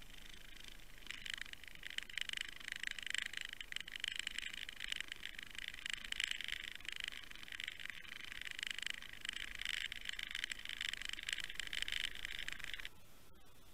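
Steady crackling, hissing underwater noise picked up by a camera towed on a trolling line; it cuts off suddenly about a second before the end.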